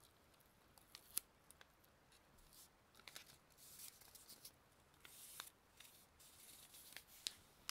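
Faint rustling strokes and scattered light clicks, with a sharp click about a second in and another near the end.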